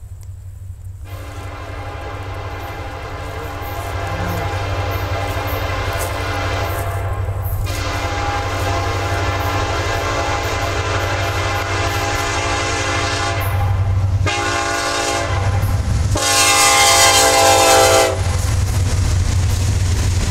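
Norfolk Southern EMD SD70ACE diesel locomotive sounding its horn for a grade crossing as it approaches: long blasts, then a short one, then a final long blast that is the loudest, over a steady low engine rumble that grows louder. After the horn stops, near the end, the locomotive has passed and covered hopper cars roll by.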